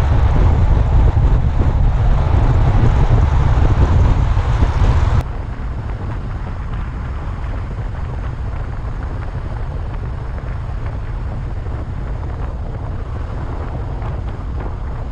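Wind buffeting the microphone of a camera on a moving car, with a steady rush of road noise. About five seconds in it drops abruptly to a quieter, even rush of tyre and wind noise from a camera mounted low on the car's side.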